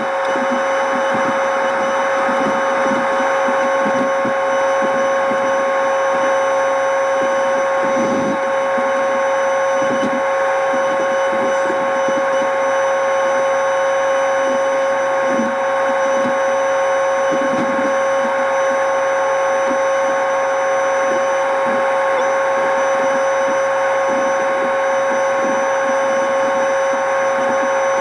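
A machine engine running steadily under load, with a constant high whine over it and a few low knocks scattered through.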